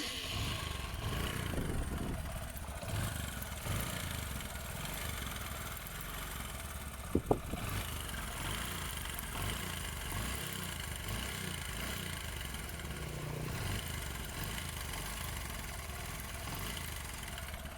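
Bajaj Discover 125's single-cylinder four-stroke engine running steadily at idle, with a noise its mechanic calls very bad. The engine is burning oil, and the piston and rings turned out to be badly worn. One short sharp sound stands out about seven seconds in.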